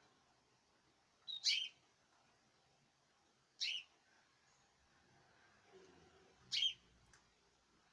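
A caged songbird giving three short, high chirps a couple of seconds apart.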